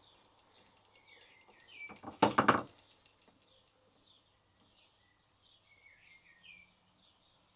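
Small birds chirping in short repeated calls, faint and steady throughout, with one brief, louder knock or clatter a little over two seconds in.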